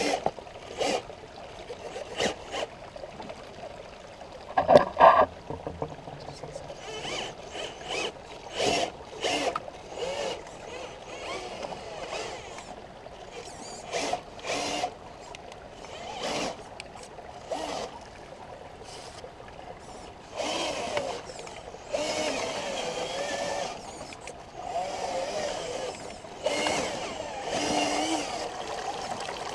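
Motor and gears of a homemade RC crawler truck whining, the pitch wavering with the throttle, as it drives through a shallow rocky stream. Frequent sharp clatters and splashes come from the tyres and chassis on the stones, over the sound of running water.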